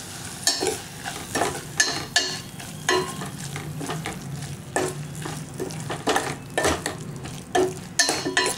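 Steel ladle stirring mint leaves, onion and tomato frying in a stainless steel pot, the ladle scraping and knocking against the pot in irregular strokes over a steady frying noise.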